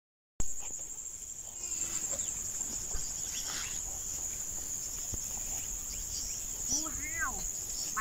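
Steady high-pitched drone of insects in the field, without a break. A person's voice speaks briefly near the end.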